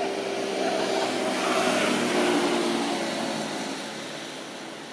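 An engine passing by: it swells to its loudest about two seconds in, drops slightly in pitch, and fades away.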